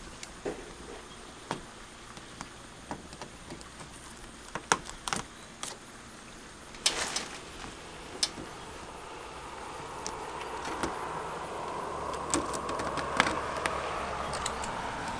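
Light handling noise of window flashing being pressed on and worked around a window opening: scattered small taps and clicks, with a brief rustle about seven seconds in. From about nine seconds a steady drone slowly grows louder underneath.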